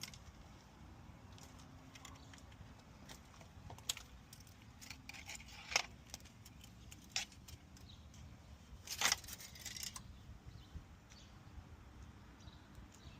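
Scattered light clicks and rattles, loudest in a short cluster about nine seconds in: an engine oil dipstick being drawn out, wiped and pushed back in to check the oil level.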